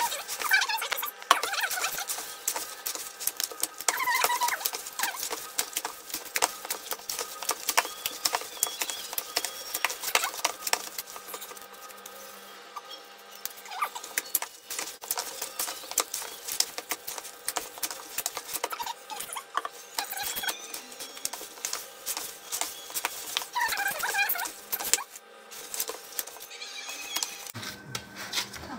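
Soft, oily dough being kneaded by gloved hands in a plastic bowl: a steady run of quick wet clicks, smacks and squelches, with a short squeak now and then.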